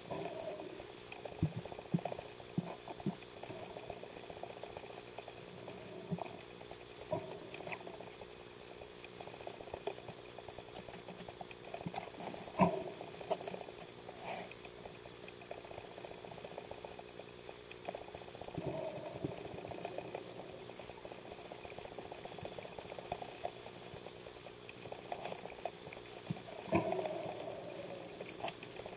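Sea water heard underwater: muffled gurgling and bubbling, with scattered knocks and clicks over a faint steady hum. The loudest knock comes about twelve and a half seconds in.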